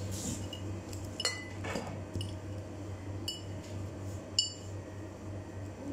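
Small glass spice jars clinking as they are handled. There are a few sharp, ringing clinks over a steady low hum.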